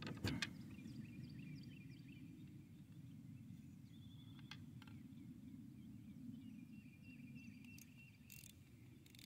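Quiet pond-side ambience: faint birds calling in the distance over a low steady background hiss, with a single sharp knock just after the start.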